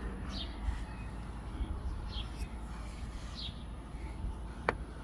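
A bird chirping outdoors: short, high, downward-sliding chirps repeated about once a second, over a low steady rumble. A single sharp click sounds near the end.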